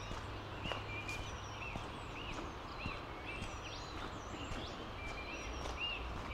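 Footsteps walking at a steady pace along an outdoor trail, a little under two steps a second, with short high chirps repeating in time with the steps and a few faint bird calls over a steady outdoor background.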